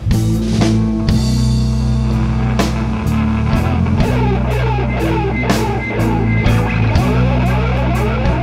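Live rock band playing an instrumental passage: electric guitars over sustained bass notes and a drum kit, with quick lead-guitar runs in the second half.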